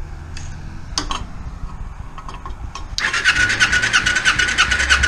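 Kawasaki Ninja 250 (EX250) parallel-twin engine spun over by its electric starter with the spark plugs out and the throttle wide open, as for a compression test: a few sharp clicks, then about three seconds in a steady starter whine with a quick even pulse as the engine turns over without firing.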